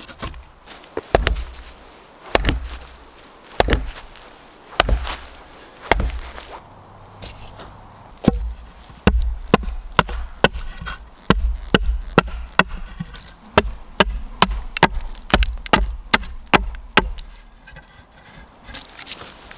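Axe chopping wood, strokes coming about once a second at first, then quickening to about two a second for most of the rest.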